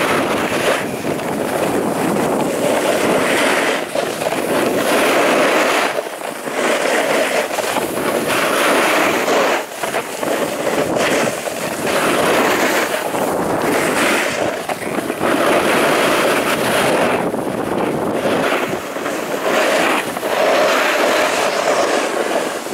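Wind rushing over the microphone and the scrape and hiss of sliding down a groomed, hard-packed piste. The noise swells and eases every few seconds, with brief dips as the turns change.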